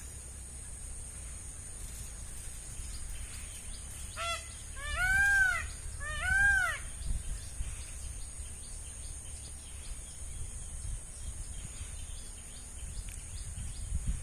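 A bird calls three times, about four to seven seconds in: one short call, then two louder calls that each rise and fall in pitch. A steady high insect buzz runs underneath.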